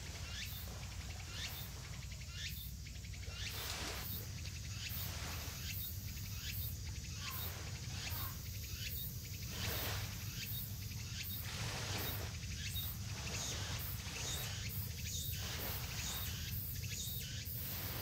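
Outdoor ambience: insects chirping in short, repeated high pulses over a low, steady rumble.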